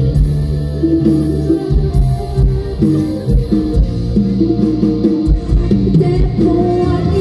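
Mor lam band music: a drum beat under a busy melodic line.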